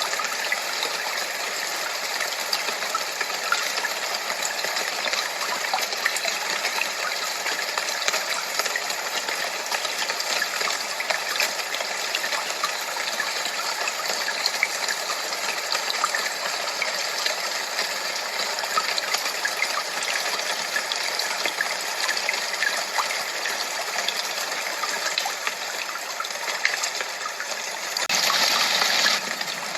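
Steady rushing, gushing water: a dense, even wash of water noise used as a tinnitus masker, briefly louder near the end.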